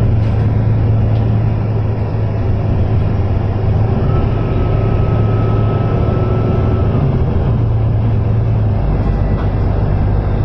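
Volvo B9TL double-decker bus under way, heard from inside the passenger cabin: its rear-mounted six-cylinder diesel running with a steady low drone over road noise. A faint high whine comes in for a few seconds in the middle, and the low drone drops away near the end.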